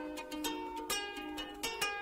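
Background music: a ukulele tune of plucked notes that ring and die away, several notes a second.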